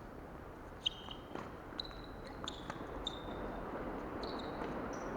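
Tennis being played on a court: sharp ball hits and bounces about a second apart, with several short high-pitched squeaks of shoes on the court surface.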